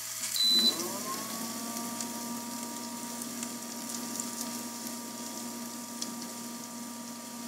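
Power Smokeless Grill's built-in smoke-extraction fan switched on: a short electronic beep, then the fan whines up in pitch over about a second and settles into a steady whirring hum.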